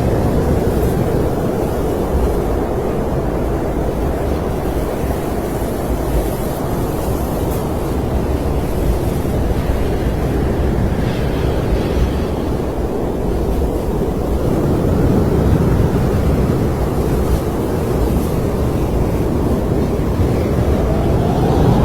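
Snowstorm wind blowing in a steady low rush, with a faint rising whistle near the end.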